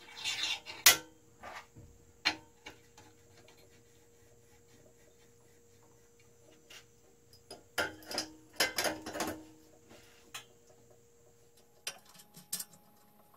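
Scattered clicks and clinks of metal parts being handled and fitted onto an aluminum-extrusion printer frame: a sharp knock about a second in, another near two seconds, and a cluster of knocks around eight to nine seconds in, with quiet stretches between over a faint steady hum.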